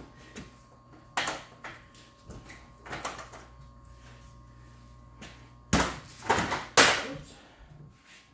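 Knocks and clunks of a rubber excavator track and its steel undercarriage being handled while the track is worked onto the sprocket, ending in three loud knocks close together near the end. A low steady hum runs underneath and stops just before those three knocks.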